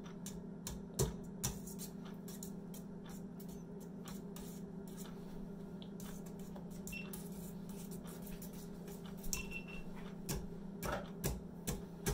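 A utensil clicking and tapping irregularly against a mixing bowl as eggs and heavy cream are beaten into a custard, over a steady low hum.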